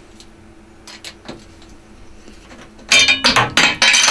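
A metal transit bracket falling and clattering about three seconds in: a quick run of sharp metallic clinks and knocks with a brief ring. Before it, only a few faint clicks.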